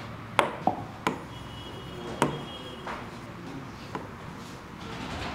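A stylus tapping and clicking on the glass screen of an interactive whiteboard while a diagram is drawn: about half a dozen sharp, separate taps, the loudest a little after two seconds in.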